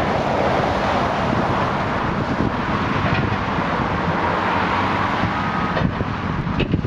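High-reach demolition excavator's diesel engine running steadily, with a few sharp knocks near the end.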